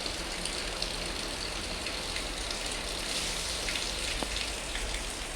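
Rain falling steadily during a hurricane, with scattered drop ticks over a low steady rumble.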